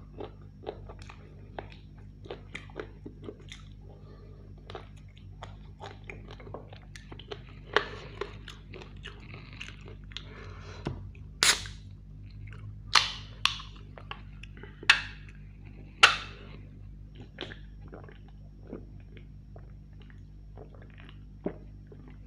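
Close-miked chewing and wet mouth sounds of a man eating roast chicken, with many small clicks. From about eleven to sixteen seconds in, four louder, sharp sounds come as he drinks from a can of soft drink.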